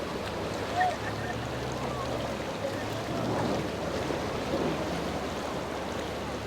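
Boat engines running through choppy inlet water, with a steady low engine hum under the wash of waves and wind on the microphone.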